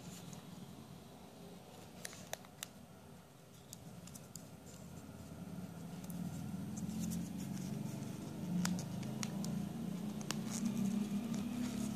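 Small orange plastic parts of a Kinder Joy Tom and Jerry toy and a card cutout handled and pressed together: a few light plastic clicks, a cluster about two seconds in and more later, over scratchy rubbing that grows louder in the second half.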